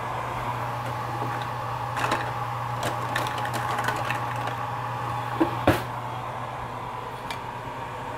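Kitchen utensils clinking and rattling as a cluttered kitchen drawer is rummaged through: scattered light clicks, then two sharper knocks about five and a half seconds in, over a steady hum.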